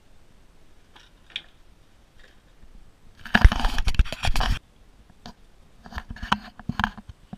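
A loud burst of scraping and crunching close to the microphone about three seconds in, lasting a little over a second. It is followed by a few separate knocks of footsteps going down wooden stairs.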